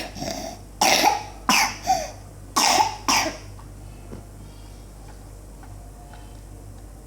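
A fit of coughing from someone who is ill with a fever and cough: about six short, harsh coughs in quick groups over the first three seconds, then it stops.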